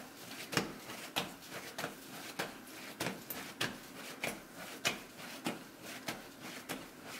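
Hand-kneading a ball of yeast dough for pide on a floured worktop: soft, regular thuds as the dough is pressed and turned against the counter, about one every half second or so.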